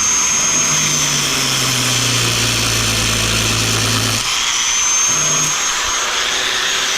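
Electric cutting tool with an abrasive cut-off wheel grinding into a metal box: a harsh, steady grinding hiss over a high motor whine. The wheel is worn down too small to finish the cut.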